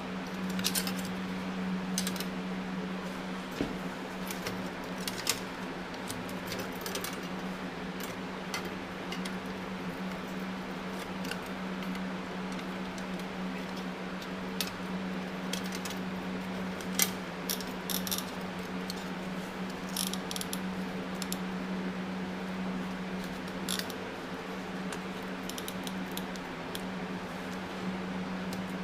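Scattered light metallic clinks and taps of small engine parts and hand tools being handled, over a steady hum.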